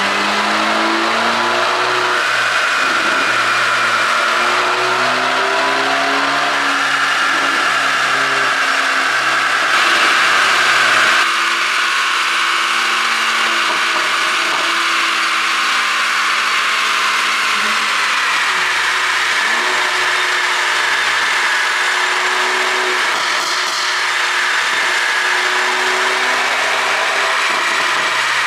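Mercedes-Benz A220 (W177) turbocharged four-cylinder engine being revved up and down over and over, its pitch rising and falling, on an ECU tune meant to make the exhaust pop on lift-off.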